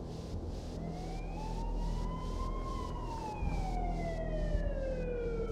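An emergency-vehicle siren on a slow wail, rising for about two seconds and then falling for about three, over a low steady hum.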